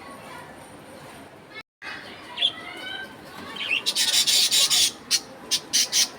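Budgerigars chirping: short gliding notes, then about a second of harsh, rapid scratchy chatter, followed by a few separate sharp clicks near the end.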